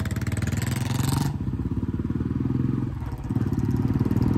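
Motorcycle engine running steadily on the road, its low pulsing beat continuous. In the first second there is a loud hiss that cuts off suddenly.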